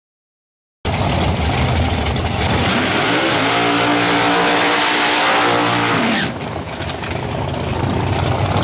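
Ford Mustang drag car doing a burnout. The engine comes in suddenly about a second in, revs up and holds high over the hiss of the spinning tyres, then the revs drop about six seconds in and it keeps running lower.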